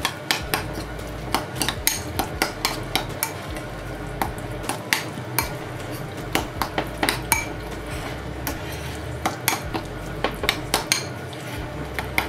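Metal spoon stirring a thick avocado-and-mayonnaise mixture in a glass bowl: irregular clinks and scrapes of the spoon against the glass, many times a second.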